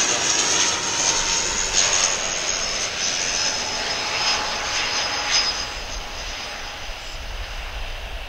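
Airliner engines running close by, a steady rush with a high whine, fading over the last couple of seconds as the aircraft moves away.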